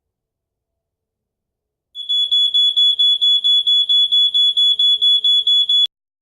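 Battery smoke detector's piezo alarm sounding a shrill high tone, pulsing about five times a second; it starts about two seconds in and cuts off suddenly near the end. The detector's test contacts are soldered shut, so it sounds whenever its 9-volt battery is connected.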